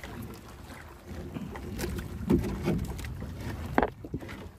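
Sounds aboard a small fishing boat at sea: a steady low rumble of water and wind against the hull, with a couple of sharp knocks as the net is worked.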